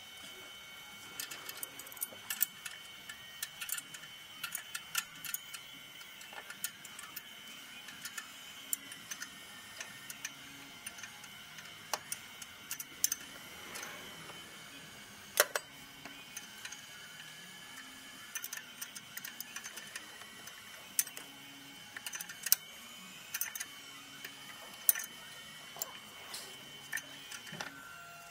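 Hand tools and metal parts clicking and clinking as an engine bay is worked on: irregular sharp ticks, a few louder, over a steady faint high whine that stops just before the end.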